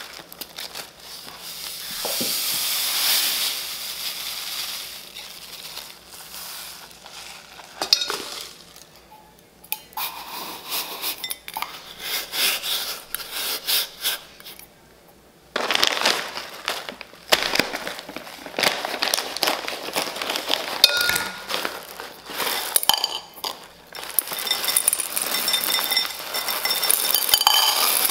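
Clinks and knocks of a metal bowl being handled inside a ceramic planter, then small white decorative stones poured in around it, a denser clatter near the end.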